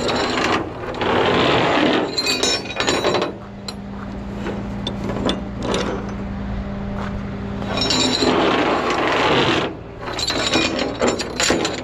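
Tow straps and metal J-hooks clinking and scraping across the steel diamond-plate deck of a rollback tow truck as they are handled, in several bursts. Under them, the truck's engine idles steadily.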